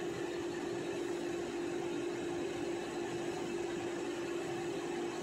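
Steady machine hum at one unchanging pitch over an even hiss.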